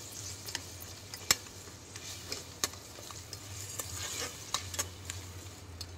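Onion and ginger-garlic paste sizzling in oil in a pressure cooker as its water cooks off, stirred with a metal spatula that clicks and scrapes against the pot now and then, the sharpest click about a second in.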